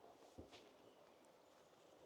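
A single faint footstep on a forest path about half a second in, then faint steady outdoor hiss.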